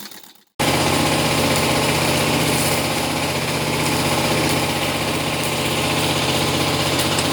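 A Mercedes-Benz Actros heavy truck's diesel engine idling steadily with an even pulse. The idle starts abruptly about half a second in, after a brief fade to silence.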